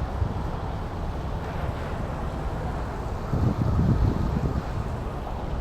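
Wind buffeting the microphone: a steady low rumble with a stronger gust about three and a half seconds in.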